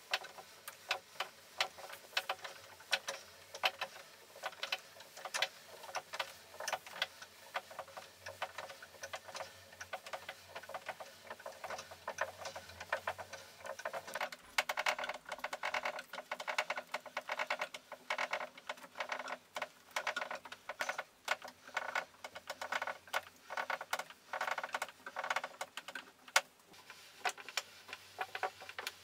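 Homemade wooden scissor lift table's threaded-rod drive clicking rapidly and irregularly, several clicks a second, as the table is raised. The clicking grows fuller about halfway through.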